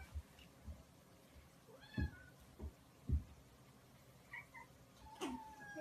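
Cat meowing in short, high calls, three times, the last one longer. A few dull low thumps come in between, the loudest about three seconds in.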